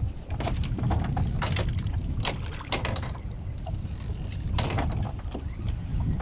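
Scattered sharp clicks and knocks of fishing rods and reels being handled on an open boat, over a steady low rumble.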